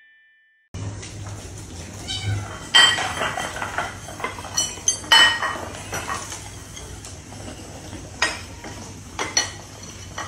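A group of kittens meowing while feeding, among repeated short clinks of kibble and ceramic food bowls on a hard floor.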